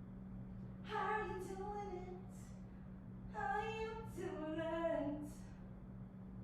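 A woman singing two short phrases with long held notes, over a steady low hum.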